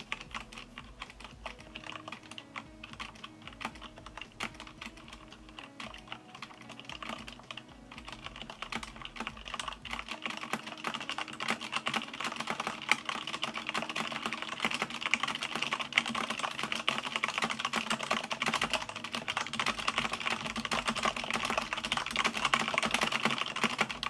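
Typing on a Corsair K95 RGB mechanical keyboard with Cherry MX Red linear switches, dampened with rubber O-rings. The keystrokes start slow and sparse, then get faster and louder from about eight seconds in, into a steady stream of key clicks.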